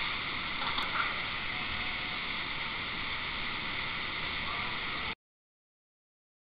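Waterfall pouring into a pool: a steady rushing hiss that cuts off abruptly to dead silence about five seconds in.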